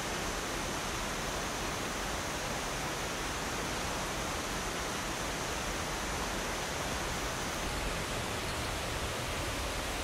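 Steady, even rush of a mountain stream's flowing water.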